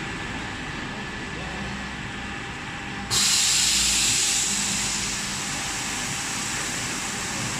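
Carpet washing machine running steadily, then a loud hiss of spray comes on suddenly about three seconds in and settles to a steady rush.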